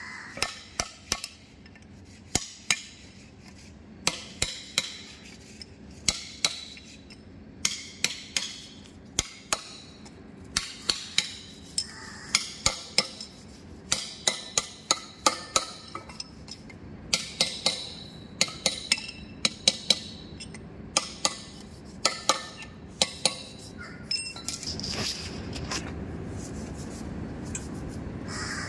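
Sharp metallic clinks in irregular clusters, a few a second, from a steel rod (drift) tapped against the bearing's locking ring in a BEML BD155 bulldozer transmission housing to seat and lock it. The tapping stops a few seconds before the end.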